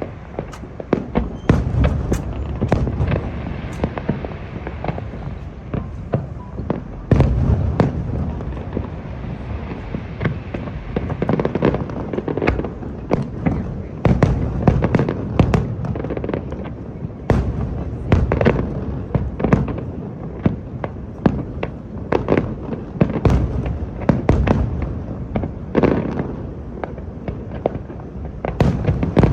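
Fireworks display: aerial shells bursting in quick, irregular succession, sharp bangs and crackles over a continuous low rumble.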